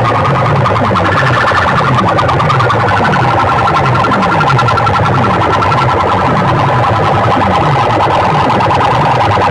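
Electronic competition track played loud through a large DJ sound-box system: a pulsing, alarm-like tone that steps up in pitch about a second in and drops back near the end, over falling bass sweeps about twice a second.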